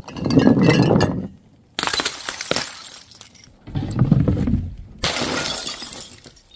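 Glass bottles smashing one after another, four crashes in all. The first and third are heavier and lower. The second and fourth are bright crashes full of clinking, tinkling shards.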